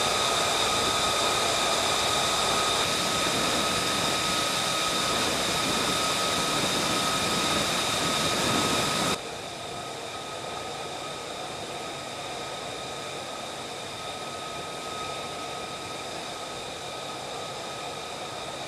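Steady jet-turbine noise: a loud rush with a high whine. It drops suddenly to a quieter level about nine seconds in, and the same whine carries on.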